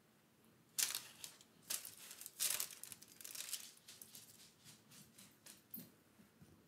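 Parchment paper crinkling in several short bursts as kitchen tongs lift crisp baked bacon strips off a lined baking sheet. The bursts are loudest in the first half, with smaller rustles and light taps after.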